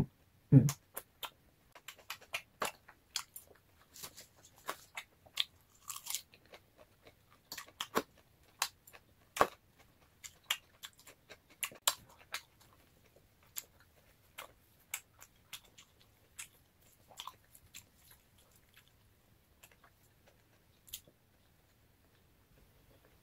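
A person chewing a mouthful of food close to the microphone: irregular wet mouth clicks and small crunches, thinning out over the last several seconds.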